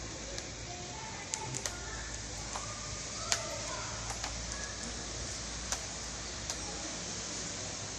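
Steady rain falling, an even hiss, with a few sharp taps standing out over it, the loudest about three seconds in.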